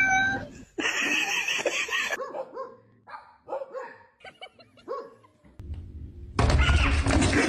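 A dog barking and yipping in short calls, with sections that start and stop abruptly.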